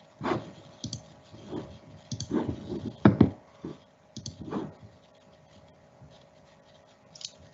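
A few irregular clicks and soft knocks, handling noise at a desk with a computer, bunched in the first five seconds with one more near the end, over a faint steady hum.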